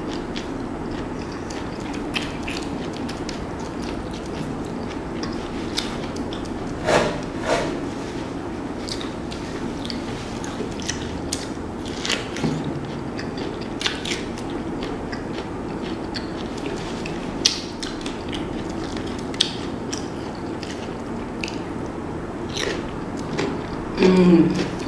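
Close-up mouth sounds of eating corn on the cob in a thick sauce: biting kernels off the cob, chewing, with wet lip smacks and sucking clicks over a steady low hum. A short hummed "mmm" near the end.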